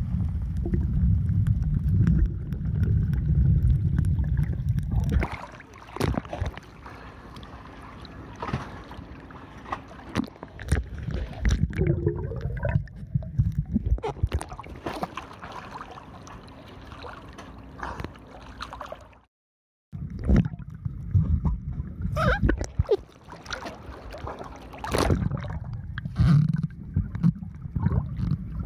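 Water noise picked up by a waterproof action camera under and at the surface of the sea: a low rumble of water moving past the housing, with scattered clicks and knocks. The sound cuts out completely for a moment a little past halfway.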